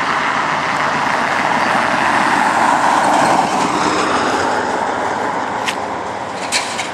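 A car passing by on the road, its tyre and engine noise swelling to a peak about halfway through and then fading away, with a few light clicks near the end.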